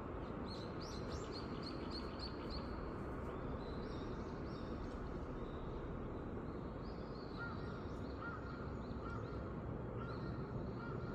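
Small birds chirping in quick runs of high repeated notes over a steady background hum of city noise. In the second half a lower note repeats about every two-thirds of a second.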